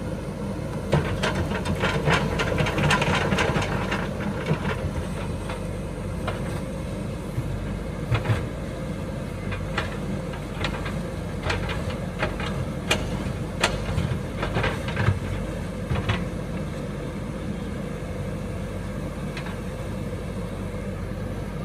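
A diesel engine running steadily under a JCB 3DX backhoe loader as it works its bucket in the river. Sharp knocks and clacks come in clusters through the first two thirds, the loudest ones near the start and in the middle, then die away.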